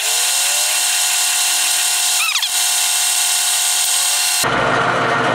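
A flat file held against a workpiece spinning in a metal lathe, making a steady, thin scraping hiss over the lathe's running, with a short falling squeak a little past two seconds in. The sound cuts off abruptly about four seconds in.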